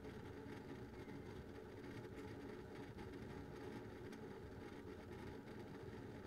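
Synology DS920+ NAS running two Western Digital Ultrastar HC330 7200 rpm data-center hard drives under active use: a faint, steady hum with a few faint ticks.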